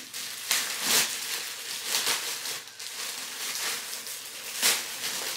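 Clear plastic bag crinkling and rustling as it is handled and pulled open by hand, in irregular crinkles, the loudest about a second in and again near the end.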